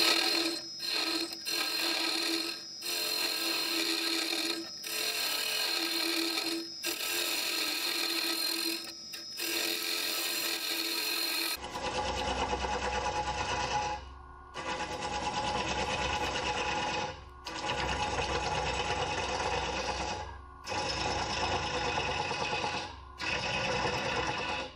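A turning tool cutting into a maple bowl spinning on a Powermatic wood lathe, in repeated passes broken by short pauses every two to three seconds. About halfway through, the cutting sound changes and turns deeper.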